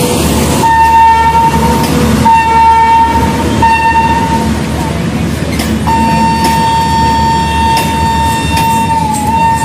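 Train horn sounding one steady note in several blasts of about a second each, then one long blast from about six seconds in. Under it runs the steady rumble of a train running on the rails.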